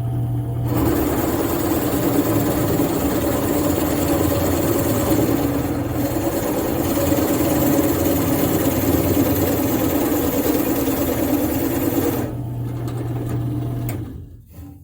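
Drill press running and boring a 1 3/8-inch hole into a wooden block: a steady motor hum, then from about a second in a louder, rougher cutting sound as the bit is fed down into the wood. The cutting stops about two seconds before the end, leaving the motor hum, which then fades as the press winds down.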